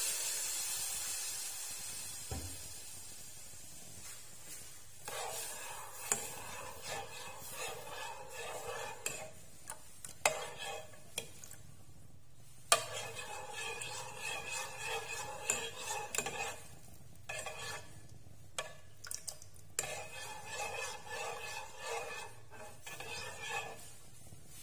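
Metal spoon stirring and scraping in a small pot of caramel sauce just thinned with water, in spells with short pauses and a few sharper clinks against the pot. A hiss from the hot caramel fades out over the first few seconds.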